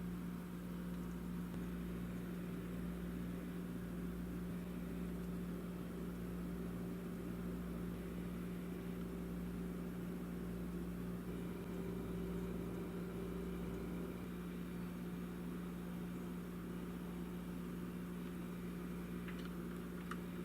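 A steady low electrical or mechanical hum over a faint hiss, with a couple of faint clicks near the end.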